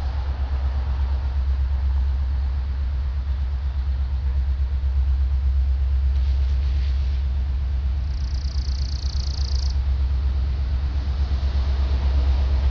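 Low, steady rumble of an approaching freight train's diesel locomotives, with a brief high hiss about eight seconds in.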